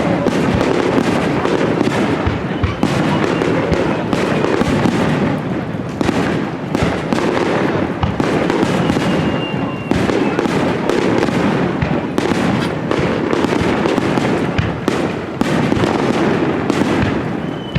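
Fireworks going off in a dense, continuous barrage of bangs and crackles, with a brief thin whistle about halfway through.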